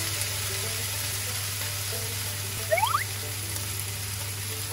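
Chicken and vegetables sizzling in a frying pan as they are stir-fried with a wooden spatula, under quiet background music. A brief rising whistle comes a little under three seconds in.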